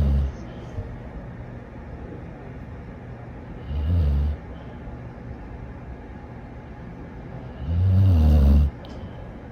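A sleeping dog snoring: low, rumbling snores about every four seconds, three in all, the last one the longest.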